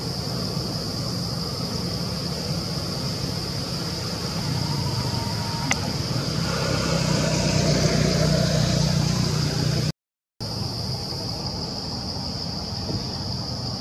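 Steady high-pitched insect drone over a low rumble that swells for a few seconds about halfway through, as of a vehicle passing on the road. The sound cuts out completely for a split second just after the swell.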